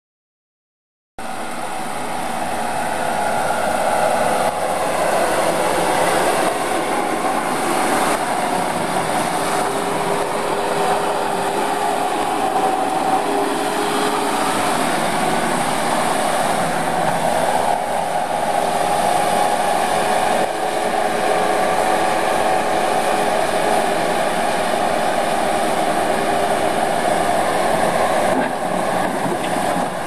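2003 Bobcat S185 skid steer's Kubota 2.0 L four-cylinder diesel running steadily, loud, with a steady whine over the engine noise. It cuts in abruptly about a second in.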